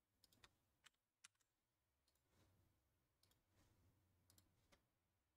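Near silence with a handful of faint computer mouse and keyboard clicks, most of them in the first second and a half.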